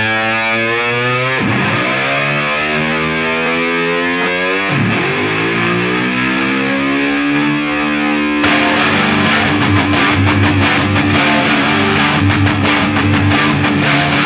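Background rock music led by a distorted electric guitar: held notes that swoop down in pitch twice, then a busier, rhythmic part comes in about eight seconds in.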